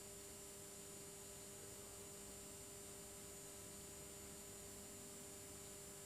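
Near silence: a faint steady electrical hum over hiss, with no distinct sounds.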